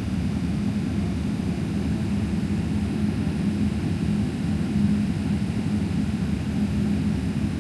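Steady cabin drone inside a Boeing 777-300ER: low rumble from its GE90 engines and airflow, with a constant hum.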